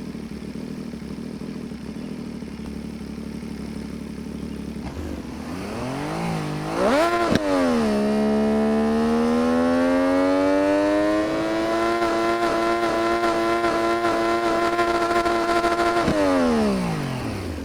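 MV Agusta 800 RR inline three-cylinder engine idling, then blipped twice and held at raised revs for about eight seconds before the revs fall back to idle.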